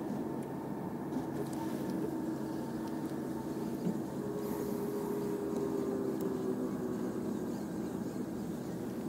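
Engine drone with a few held tones and a faint hiss underneath, slightly louder through the middle.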